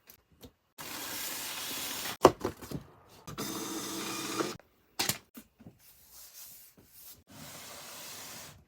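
Cardboard model-kit boxes and their contents being handled: three rubbing, sliding noises of about a second each, with a sharp knock a little after two seconds in and a short clatter about five seconds in.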